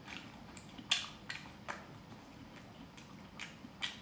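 A person chewing a mouthful of chicken, with about five short, soft wet smacks of the mouth spread through a few seconds, the clearest about a second in.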